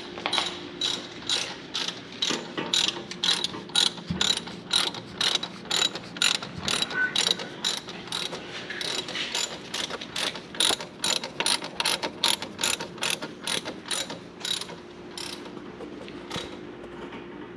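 Hand ratchet wrench clicking in a steady run of sharp ticks, about two to three a second, as a fastener is worked; the clicks thin out near the end.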